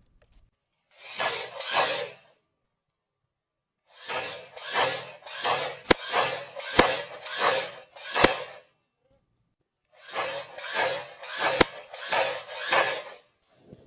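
Footsteps crunching through dry leaves and brush at a walking pace, in three runs with pauses between them, and a few sharp twig snaps among them.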